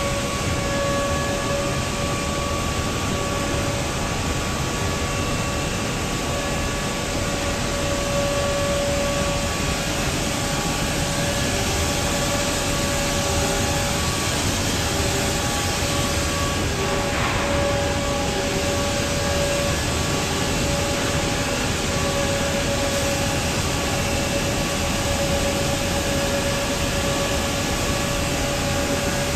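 Woodmaster wide-belt veneer sanding machine running steadily as a veneered panel feeds through, a constant whine over an even noise of the belt and feed conveyor.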